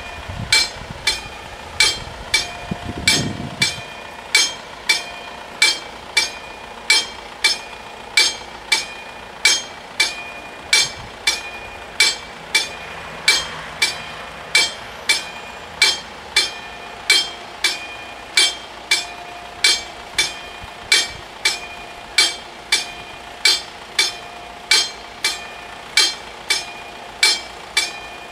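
Level-crossing warning bell striking steadily, about one and a half strokes a second, each stroke ringing briefly: the crossing is closed for an approaching train. A low rumble underneath fades out about four seconds in.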